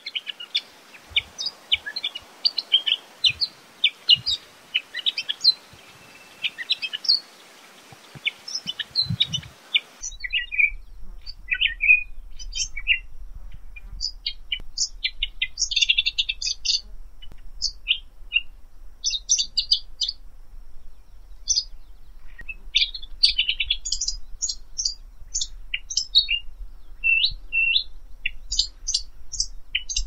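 Mackinnon's shrike calling: a run of short, high chirps and whistled notes, with harsher scratchy clusters of notes now and then. About ten seconds in, the background hiss gives way to a cleaner recording with a faint low hum.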